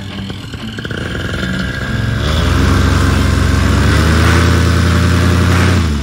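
Vittorazi Moster 185 Plus paramotor engine, a single-cylinder two-stroke, running at low throttle, then revved up about two seconds in and held at high throttle. Near the end it drops sharply back down.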